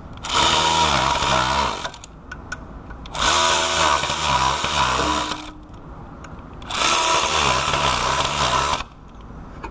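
Handheld power tool driving a socket on an extension, run three times for about two seconds each, tightening the water pump pulley bolts one after another.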